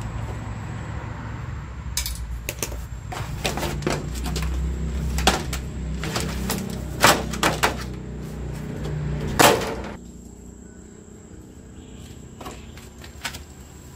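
Plastic back cover of an LG LCD TV being worked loose and lifted off the metal chassis: a string of clicks, knocks and plastic clatters over a low rumble, with two sharper knocks in the middle. The handling stops after about ten seconds.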